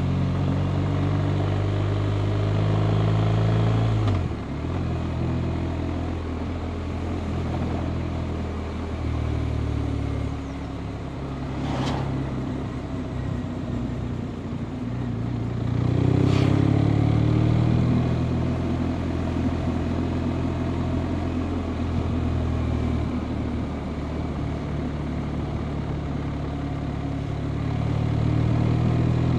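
BMW R 1250 RT's 1254 cc boxer twin running under way over wind and road rush. The engine note drops about four seconds in and climbs again as it accelerates a little past halfway, with two short sharp clicks in between.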